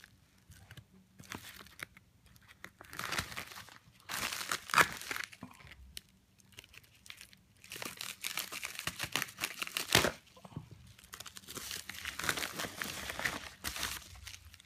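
Mylar emergency blanket being unpacked and unfolded: irregular bursts of crinkling, crackling thin metallised plastic foil, with one sharp crackle about ten seconds in.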